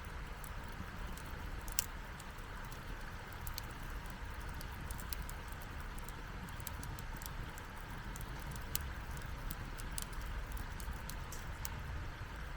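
Wood crackling and popping in a campfire: irregular sharp pops, two louder ones about two seconds in and near nine seconds, over a low steady rumble.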